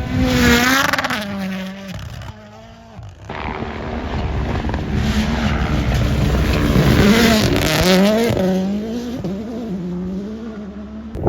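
Rally cars passing at speed, engines revving hard with the pitch rising and falling: one car loud at the start and cut off after about two seconds, then a second car building up, loudest past the halfway point, and fading away.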